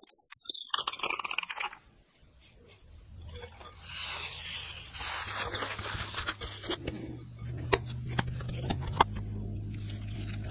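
Cooked potato squelching and crackling as it is squeezed through a potato ricer. After that, a gloved hand squishes and kneads the mashed potato, with soft rubbing and small wet clicks. A low steady hum runs underneath from about three seconds in.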